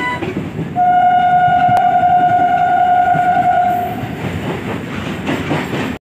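Commuter train coach running with a steady rumble. About a second in, the train's horn sounds one long, steady note for about three seconds.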